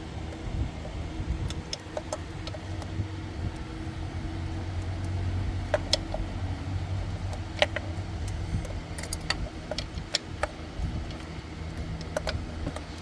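Scattered sharp clicks and light knocks of an ignition coil and hand tools being handled in an engine bay during a coil swap, over a steady low hum.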